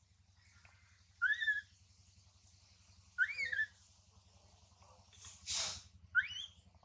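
Infant long-tailed macaque crying: three short, high whimpering calls a couple of seconds apart, each rising then falling in pitch, with a short breathy hiss just before the last one. The baby is being weaned and cries for its mother.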